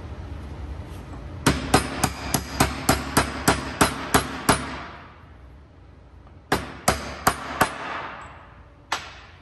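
Metal-on-metal hammer taps on the top of a transmission mainshaft's gear stack, seating a part on the shaft. A run of about eleven ringing blows at roughly three a second, then four more and one last tap near the end.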